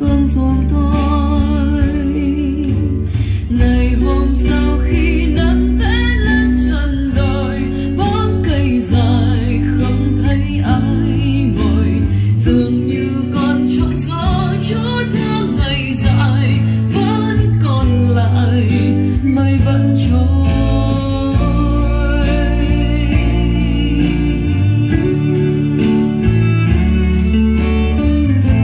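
A song with a singing voice and guitar, playing from a vinyl record on a Denon DP-59L turntable.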